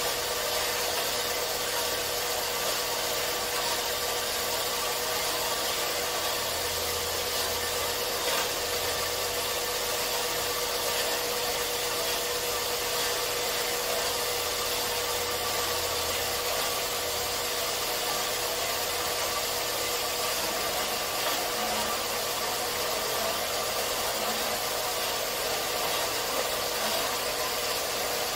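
4x6 horizontal metal-cutting bandsaw running steadily, its 18-teeth-per-inch blade sawing through a bundle of 11-gauge square steel tubing, with a steady hum under the hiss of the cut.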